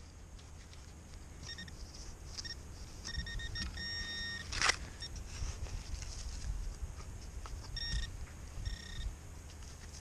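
Metal detector beeping on a target: a string of short beeps all at the same pitch, the longest about four seconds in, with another pair near the end. Just after the long beep comes one sharp knock or scrape.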